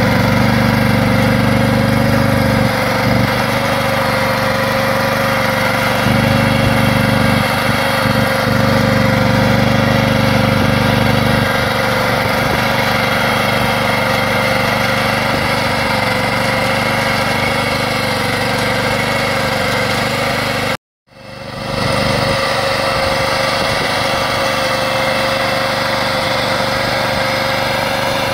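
Pasquali XB40 two-wheel tractor's small engine running steadily under load as its rotary plough churns through the soil. The sound cuts out for an instant about three-quarters of the way through, then comes straight back.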